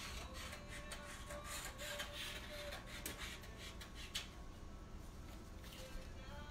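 Scissors cutting sublimation transfer paper, with the paper rustling: a run of faint snips and crinkles that thins out after about four seconds.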